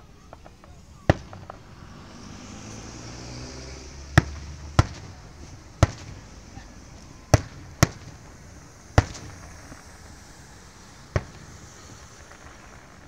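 Aerial fireworks shells bursting: about eight sharp bangs at uneven intervals, some a second or more apart and some in quick pairs.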